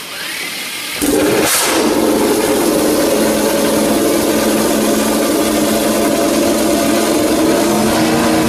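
A Suzuki GSX-RR MotoGP bike's inline-four engine catches about a second in and then runs loud and steady.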